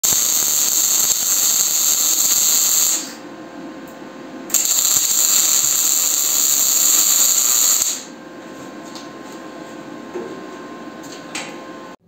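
Electric arc welding on steel plate: two runs of steady crackling sizzle, the first about three seconds long, the second starting about a second and a half later and lasting about three and a half seconds. Between and after the runs only a low steady hum remains.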